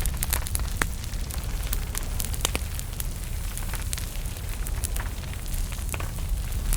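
Small wood fire burning in a fireplace: irregular sharp crackles and pops over a steady low rumble of the flames.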